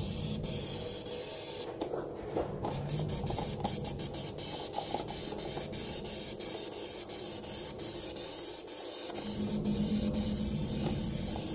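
Aerosol spray can of textured coating hissing steadily as it is sprayed, with a brief break about two seconds in.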